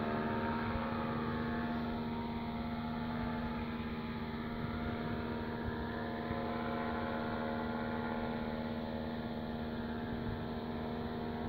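Engine and propeller of a small flying craft droning steadily, holding one pitch.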